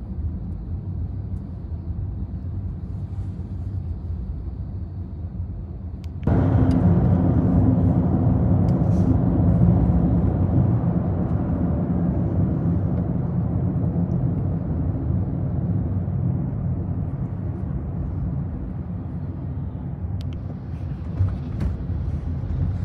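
Car interior at highway speed: steady low tyre and engine rumble. About six seconds in the road noise jumps suddenly louder and fuller, then slowly eases back.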